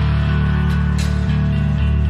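Instrumental background music with held, sustained chords.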